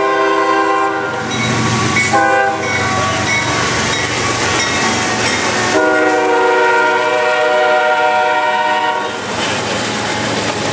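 CSX diesel freight locomotive's multi-chime air horn sounding as the train passes: a long blast ending about a second in, a short blast about two seconds in, then a long blast from about six to nine seconds, the close of the long-long-short-long grade-crossing signal. The train's wheels rumble and clack on the rails underneath.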